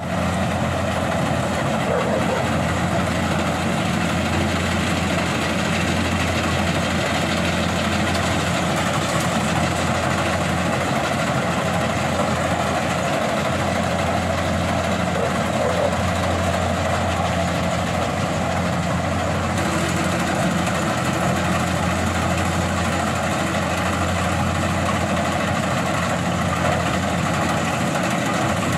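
Kubota combine harvester running steadily while reaping corn: its diesel engine and threshing machinery make an even, unbroken drone with a strong low hum.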